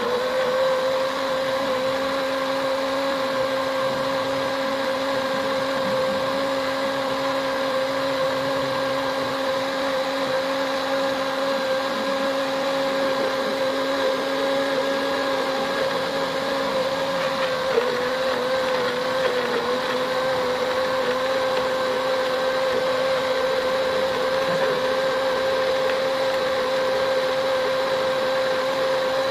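Electric kitchen blender running steadily, grinding a mix of temulawak, turmeric, ginger and kencur rhizomes; its pitch wavers briefly about 18 seconds in.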